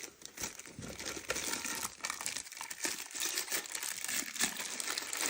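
Packaging crinkling and rustling as vacuum attachments are unwrapped and handled, with many small irregular crackles.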